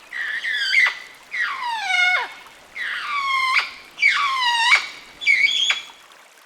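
St. Lucia parrot (St. Lucia amazon) calling: five loud calls about one a second, several sliding downward in pitch.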